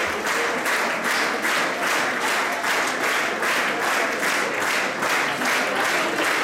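Concert audience applauding, clapping together in a steady, even rhythm.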